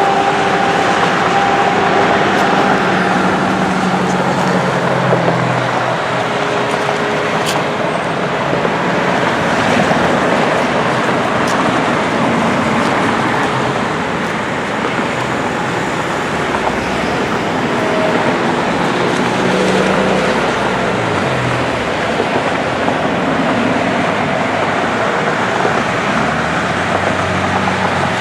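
Steady road traffic noise with vehicle engines going past, their pitch dropping as each one passes, twice.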